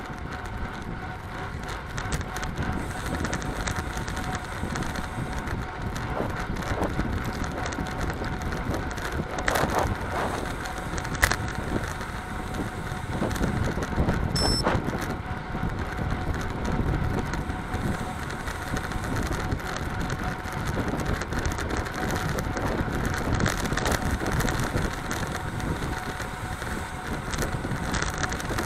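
Road bicycle riding fast, around 43 km/h: steady wind rush on the microphone mixed with tyres humming on asphalt, and one sharp click about eleven seconds in.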